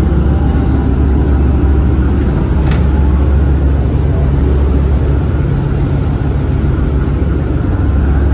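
Tour boat's engine running steadily with a deep, even hum.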